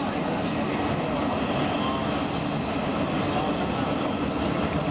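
Roslagsbanan X10p electric train running at speed, heard from inside the passenger car: a steady rumble of wheels on the rails. A thin high wheel squeal sounds at the start and again about two seconds in.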